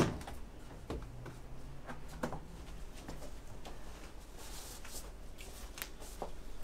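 Hiking boots being handled and wiped down by hand to disinfect them: soft rustling and scuffing with scattered light taps. A sharp knock comes at the very start.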